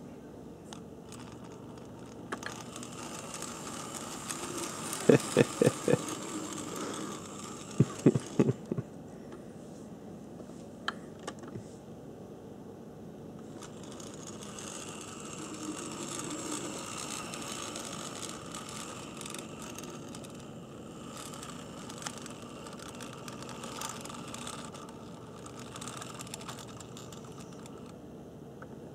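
Motor and gear train of a Tenshodo brass HO-scale JGR Neilson D9 4-4-0 model steam locomotive running on track, a steady mechanical whirr that swells twice. Two quick clusters of sharp clicks come about five and eight seconds in.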